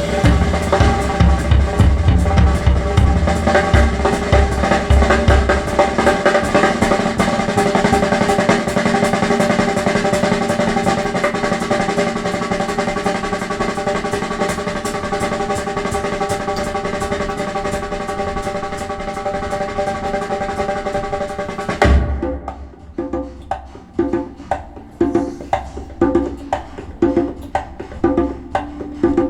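Recorded music with a drum kit, playing back through Bowers & Wilkins 803 D4 loudspeakers driven by a Marantz MODEL 10 amplifier. Fast drumming runs over sustained chords, then about three-quarters of the way in the music drops away abruptly and leaves sparse drum hits.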